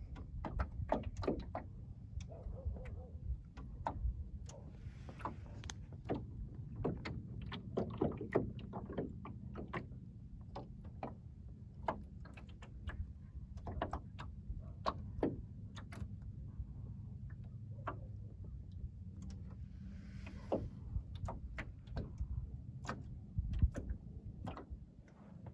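Small waves lapping and slapping against the hull of a flat-bottomed wooden sailing skiff in light wind, heard as irregular small knocks and clicks over a steady low rumble.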